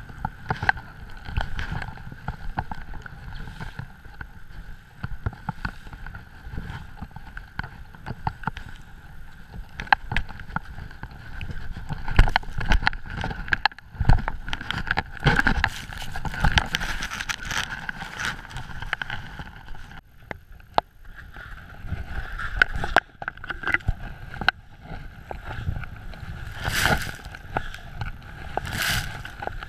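Skis running fast through deep powder snow, with wind buffeting the microphone. The sound rises and falls unevenly, with two sharp bursts of snow noise near the end.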